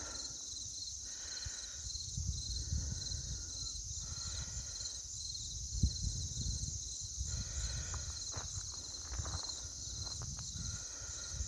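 Chorus of crickets chirping steadily in an even, pulsing drone, with a low rumble coming and going underneath.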